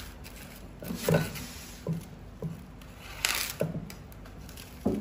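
Plastic cling film crinkling as it is stretched over a plate and pressed down around the rim, in short, separate handling noises with a sharper crinkle a little past the middle.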